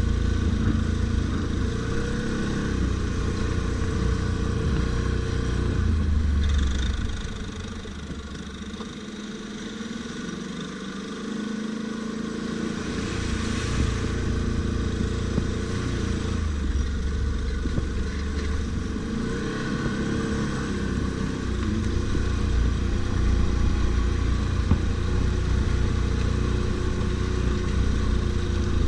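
ATV engine running under varying throttle, its note rising and falling. About seven seconds in it drops to a quieter, lower running for a few seconds, then picks up again.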